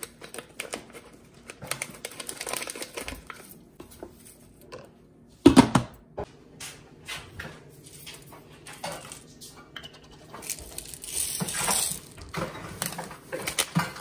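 Kitchen handling sounds: scattered clicks and clinks of dishes and utensils, with one loud knock about five and a half seconds in and a short gritty scraping noise about eleven seconds in.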